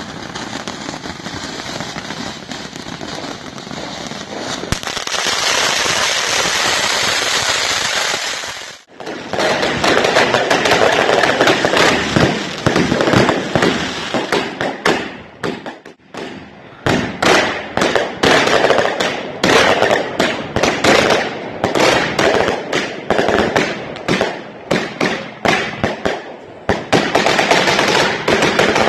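Firecrackers going off: a dense, continuous crackling for about nine seconds that stops suddenly, then a long run of sharp, irregular bangs, several a second, with a short break partway through.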